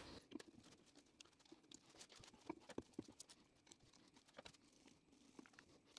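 Near silence broken by a few faint, scattered clicks and taps as the gearbox's cast cover is lowered and seated onto its flanged casing by gloved hands.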